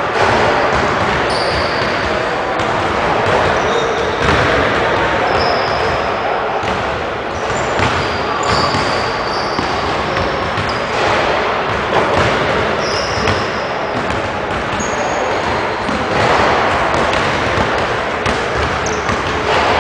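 Basketballs bouncing on a hardwood gym floor in a large, echoing gym, with scattered short high sneaker squeaks and background voices.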